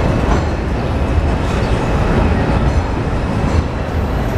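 R142 subway train arriving on an elevated steel track structure overhead: a loud, steady rumble.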